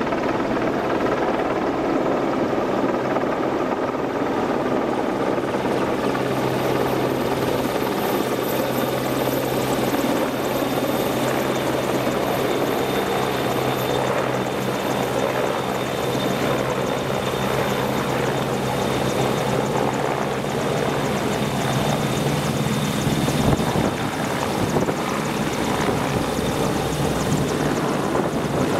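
AgustaWestland Merlin helicopter running: a steady rotor drone with a thin, high turbine whine over it. The low drone eases off about three-quarters of the way through.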